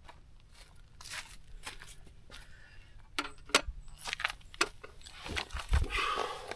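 Crinkling, tearing and crunching of food being handled and bitten into, with a few sharp clicks, busier and louder in the second half.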